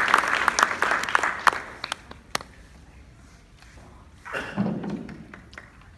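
Small audience applauding, the clapping thinning out to a few last claps and stopping about two seconds in. A brief voice sound follows near the end.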